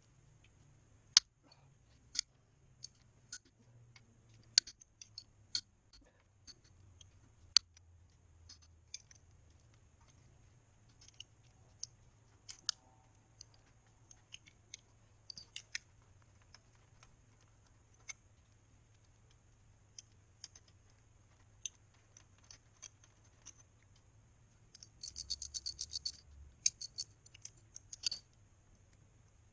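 Socket wrench and sockets clinking against the bare cylinder head of a Honda GL1100 engine as bolts are undone: scattered sharp metallic clicks, and about 25 seconds in a second-long run of rapid ratchet clicking.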